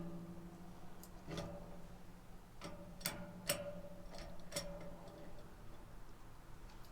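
Irregular sharp metallic clicks and clinks, about six over several seconds, each ringing briefly: tools working on metal plumbing fittings as a fitting is tightened.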